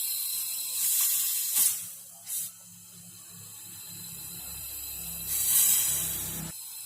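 Refrigerator compressor running and blowing gas out of the open refrigerant tubes, a hiss that swells twice over a low hum. The free flow shows that the freshly brazed joints are not blocked.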